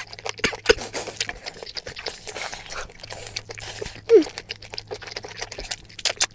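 Eating sounds close to the microphone: a fork clicking and scraping on a plate, and chewing, in many short irregular clicks.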